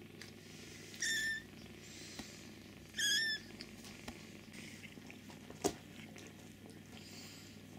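Five-week-old kittens mewing: two short, high-pitched, wavering mews about two seconds apart, over a low steady purr. A single sharp click comes about two-thirds of the way through.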